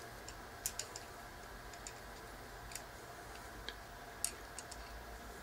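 Faint, irregular small clicks and ticks as a standard hard-drive screw is driven into the side of a SATA hard drive through its mounting plate.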